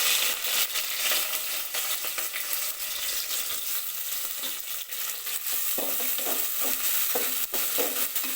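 Sliced onions sizzling loudly in hot oil as they fry for beresta, with a steady hiss. Short scrapes and clicks of stirring come through from about six seconds in.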